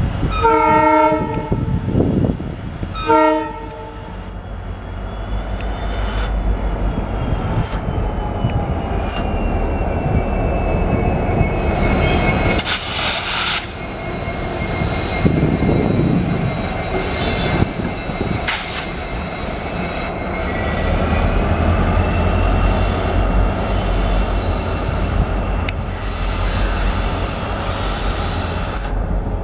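Two short blasts of a WDG-4 diesel locomotive's horn, then a pair of WDG-4 diesel locomotives running past with a steady low engine rumble and high squealing tones that slowly drift in pitch.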